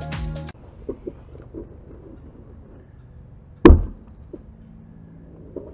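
A few faint knocks, then one loud thump about two-thirds of the way in as a section of corrugated plastic culvert pipe is driven into the bell of the next section and the joint seats.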